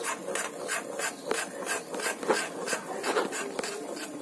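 Spatula scraping rhythmically across a kadhai, about three strokes a second, stirring semolina and gram flour as they roast in ghee to a light golden colour for sooji halwa.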